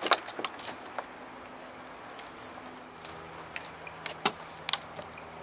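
A steady, high-pitched insect trill, with a few sharp knocks, the loudest just after the start and about four seconds in.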